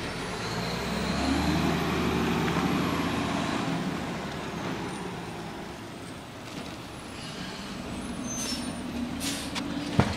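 Garbage truck's diesel engine running, growing louder over the first few seconds and then easing off. Two short air-brake hisses come near the end, then a single sharp knock.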